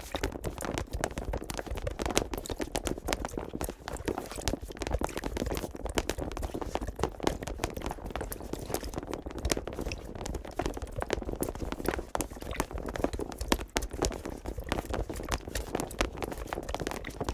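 Many rubber swim fins flapping and slapping against each other and the floor: a dense, irregular patter of small slaps with no rhythm.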